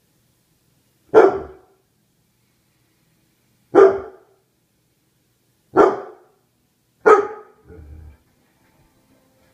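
A young Bernese Mountain Dog barks four times in short, sharp single barks spaced a couple of seconds apart, then makes a softer, lower sound just after the last bark.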